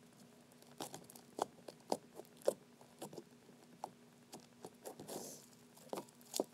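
Hand-played slime being squished, stretched and pressed on a glass tabletop, giving irregular small clicks and pops.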